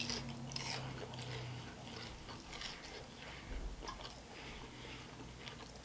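Faint chewing of a crispy cinnamon-sugar churro, with scattered soft crunches and mouth clicks.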